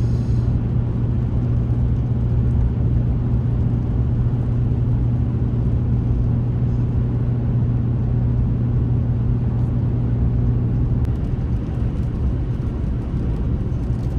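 Steady road and engine drone inside a moving vehicle's cabin, a low hum that eases slightly about eleven seconds in.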